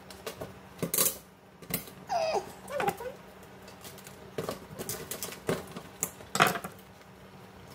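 Live crabs being scrubbed with a brush in a stainless-steel sink: scattered clicks and knocks of crab shell and brush against the metal, with bursts of scrubbing.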